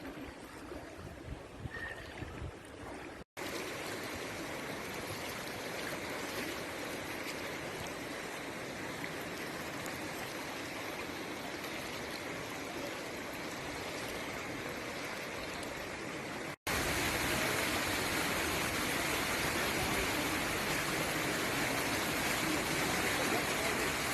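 Floodwater rushing in a steady, continuous wash of flowing water. It breaks off with a sudden cut about three seconds in and again past the middle, and is loudest after the second cut.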